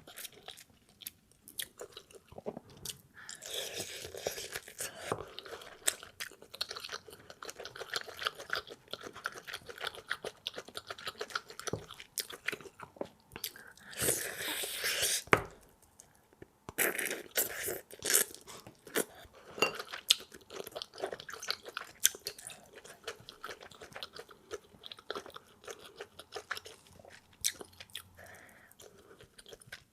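Close-miked eating sounds of fufu being eaten: wet chewing and mouth smacking in quick irregular clicks. Two longer, louder noisy stretches come about four and fourteen seconds in.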